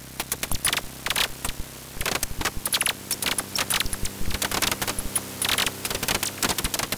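Rapid, irregular clicking and clattering over a faint, steady low hum.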